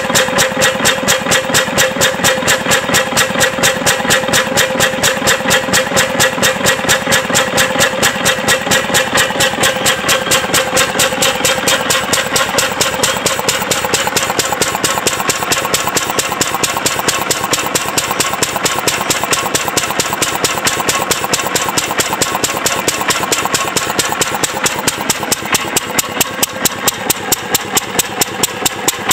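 A 1920s Crossley 1030 3 HP single-cylinder horizontal stationary engine running at a steady speed, a fast, even beat of firing strokes. Near the end the beats stand out more sharply from the sound between them.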